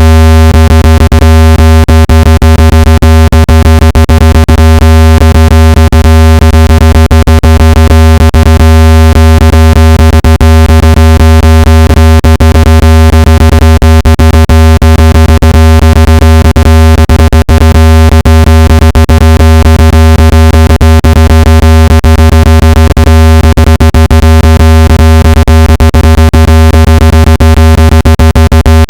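Synthesized speaker-cleaning tone played at full volume, meant to shake dust and moisture out of a phone speaker: a loud, deep steady hum with many fainter steady tones above it, broken by frequent rapid clicks.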